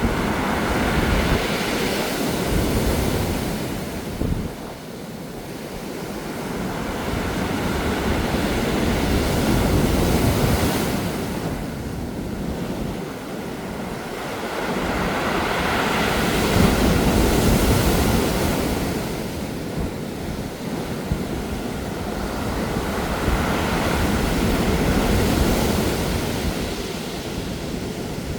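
Sea waves washing up a pebble beach, the stones rolling and rattling as the water surges and drains back. Four surges swell and fade about every seven seconds, with wind rumbling on the microphone.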